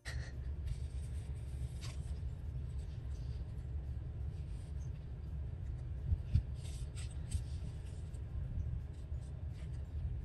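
Paper scraps being handled and pressed onto a board: light rustling and rubbing with a few soft taps, over a steady low hum.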